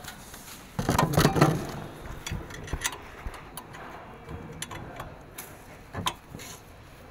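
Metal clicks and knocks from hands working the metal shipping lock bracket that holds the power weeder in its crate, being undone so the engine can be lifted out. A quick cluster of knocks comes about a second in, the loudest part, followed by scattered single clicks.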